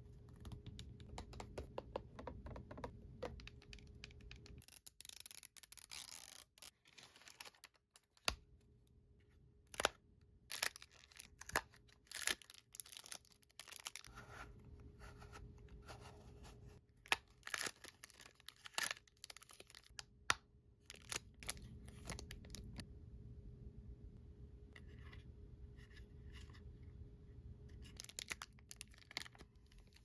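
Fingernails tapping rapidly on a desk pad, then toy packaging being torn open. A hard plastic Disney Doorables Squish'alots container is then handled, with scattered sharp clicks and snaps as its small hinged door is opened.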